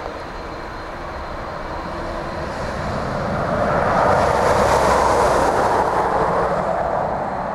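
Jet engine noise from a departing Airbus A330-200 with Rolls-Royce Trent 700 engines as it climbs away after takeoff. A broad rushing noise swells to its loudest about four to five seconds in, then begins to fade as the aircraft recedes.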